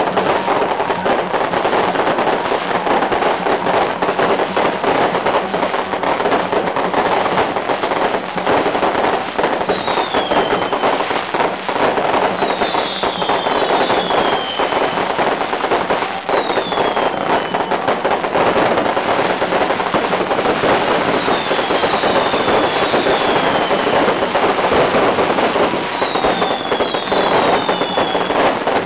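Strings of firecrackers crackling in a dense, unbroken barrage, with a few high whistles falling in pitch scattered through it, several times from about ten seconds in.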